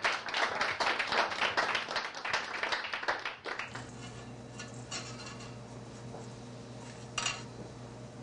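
Audience applauding for about three and a half seconds; the applause cuts off abruptly, giving way to a steady low hum with a brief noise near the end.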